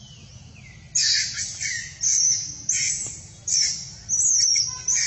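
An animal giving a rapid run of loud, shrill calls, about half a dozen, starting about a second in.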